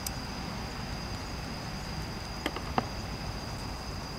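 Crickets or other insects chirring on one steady high note over a low, even background noise, with two light clicks about two and a half seconds in.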